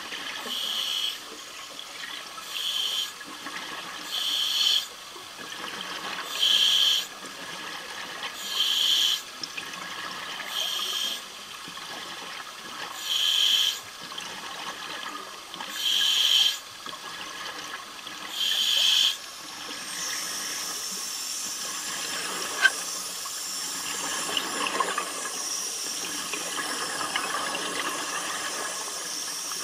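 Underwater sound of a diver's breathing gas: exhaled bubbles hiss and gurgle in regular bursts about every two seconds. From about twenty seconds in, this gives way to a steady hiss of rushing air and water.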